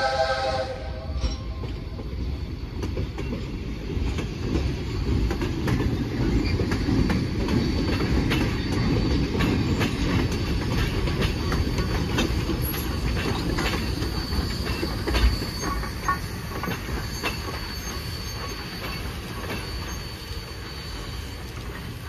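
Steam whistle of Jeddo Coal Company #85, a 1928 Vulcan 0-4-0 locomotive, ending about a second in, then the train rolling past: a steady rumble of wheels with many sharp clicks over the rail joints and a thin, steady wheel squeal, fading near the end.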